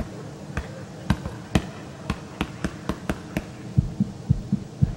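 A string of sharp, irregular clicks. About three and a half seconds in, a steady low thumping beat of roughly four thumps a second takes over.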